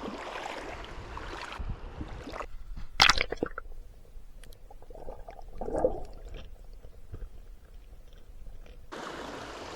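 Creek water running, then muffled handling and rubbing noises near the microphone with a sharp click about three seconds in and scattered small clicks; the creek sound comes back near the end.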